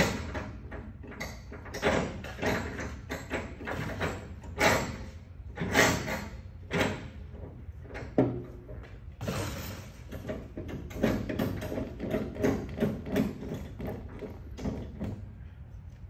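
Irregular metallic clanks, knocks and rattles from the steel door and latch of a vertical cardboard baler being worked by hand, with a short scrape partway through, over a steady low hum.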